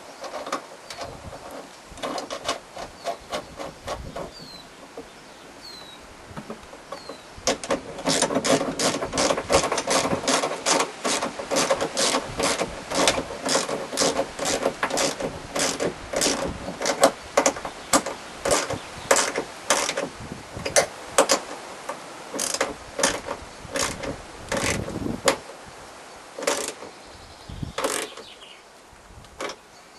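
Ratchet spanner clicking over and over as a bolt is tightened, about three clicks a second, getting louder and busier after the first few seconds, then slowing and stopping near the end.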